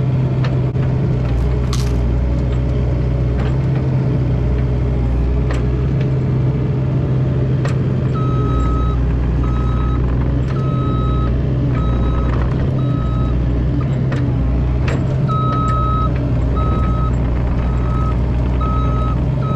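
Mini excavator engine running steadily while working, its low rumble swelling and easing as the load changes, with scattered sharp knocks. From about eight seconds in, its travel alarm beeps about once a second.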